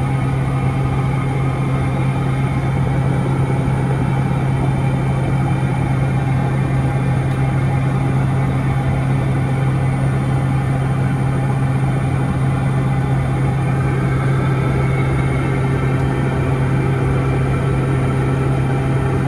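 Piper Meridian's PT6A turboprop engine and propeller heard inside the cockpit in flight: a steady, unchanging drone with one strong low hum under it.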